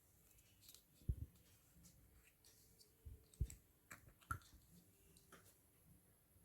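Faint, scattered clicks and soft knocks, about seven spread irregularly over several seconds, against near silence.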